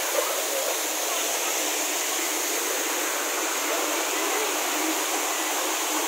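Shallow mountain stream rushing and splashing over rock slabs in a small cascade below a waterfall: a steady rush of water with no deep rumble.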